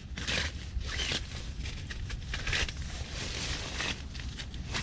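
Nylon bivy-sack fabric rustling and crinkling in irregular bursts as a thin tent pole is pushed into its stiff new sleeve, going in with some resistance.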